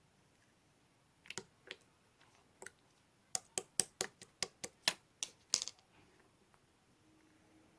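Light sharp clicks, a few scattered ones followed by a quick run of about ten at roughly four a second, then stopping.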